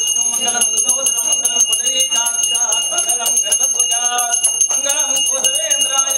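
Hand bell for a pooja ritual, rung rapidly and without pause. Its high ringing tones hold steady under a quick run of strokes, with voices underneath.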